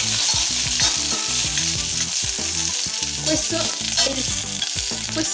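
Onion wedges sizzling as they brown in oil in a stainless steel pot, with a steady hiss. Metal tongs turning them clink a few times against the pot.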